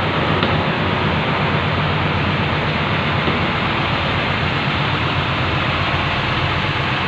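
Intercity bus's diesel engine running steadily: a low hum under an even hiss.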